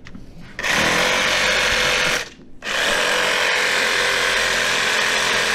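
Compact reciprocating saw cutting through a metal snowmobile bracket. It runs in two steady bursts, with a short pause about two seconds in.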